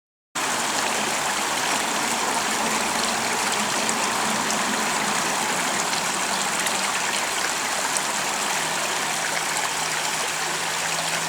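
Creek water rushing and burbling over rocks in a steady, even stream.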